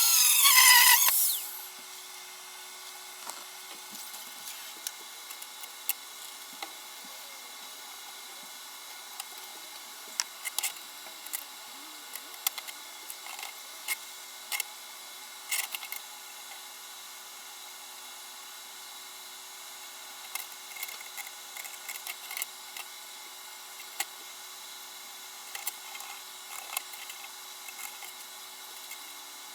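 Power tool on the steel of an old bed frame, switched off and winding down with a falling pitch about a second in. After that come scattered light clicks and taps over a faint steady hiss.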